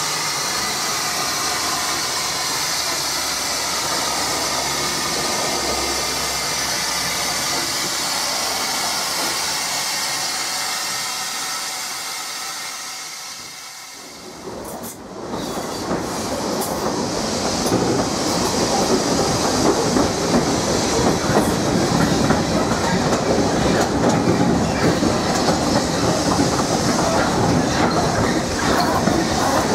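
Steady steam hiss from the narrow-gauge Beyer Peacock 0-6-0T tank locomotive "The Earl", fading out about halfway through. It gives way to the louder sound of the train running, heard from on board: wheels clattering over the rail joints and the carriage rattling.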